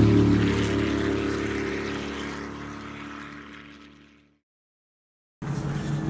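A steady engine-like hum with several held tones, fading out over about four seconds. After a second of silence, faint outdoor noise with a low steady hum begins.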